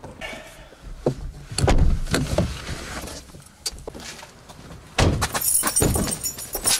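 Car door noises: heavy thuds as a man climbs out of a small hatchback and the door is shut. Near the end comes a bright metallic jangle of keys.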